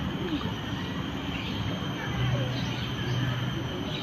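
Steady low rumble of outdoor background noise, with faint bird chirps.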